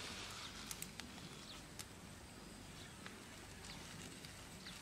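Wood fire crackling faintly, with a sharp pop every second or so over a low steady background hum.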